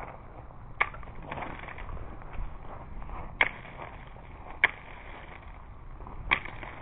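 Sharp cracks from ice-coated trees in an ice storm, four of them spaced unevenly over a steady hiss of freezing rain on the ice. The third crack is the loudest.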